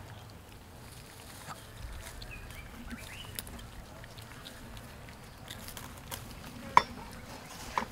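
Scattered short animal chirps and squeaks over a faint outdoor background, with one sharp, loud call about seven seconds in and another just before the end.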